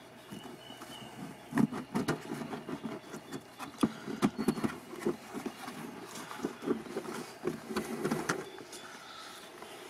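Plastic air filter housing lid being handled and worked loose by hand: irregular clicks, knocks and scraping, with a few sharper knocks about two and four seconds in.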